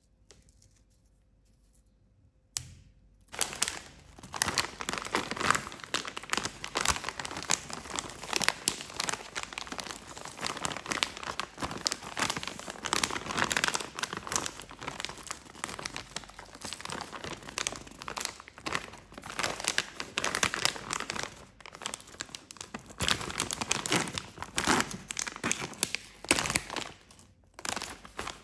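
Near quiet for the first couple of seconds, then a plastic Nestlé wafer snack bag crinkling continuously as it is handled and torn open, with a short pause near the end.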